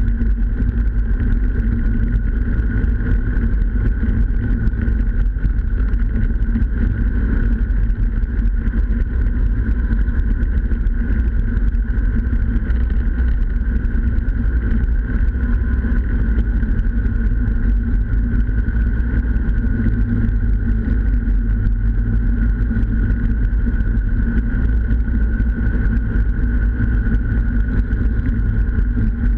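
Snowmobile engine and track running steadily at a constant cruising speed, heard close up from a camera mounted on the machine's cowling, with a heavy low rumble underneath.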